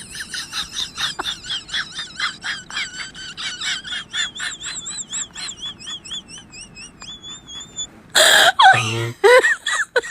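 Laughter in a long run of quick, high, squeaky pulses, about four a second, slowly weakening; about eight seconds in a loud burst of laughing breaks out, followed by more short pulses.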